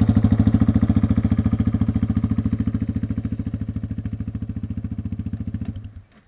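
Yamaha TW200 dirt bike's single-cylinder four-stroke engine idling with an even, rapid beat, growing gradually quieter, then stopping about six seconds in.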